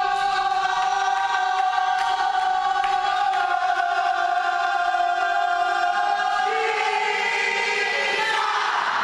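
Voices holding long sung notes together as a chord, like a choir, moving up to higher notes about six and a half seconds in; a noisy cheer or applause breaks in near the end.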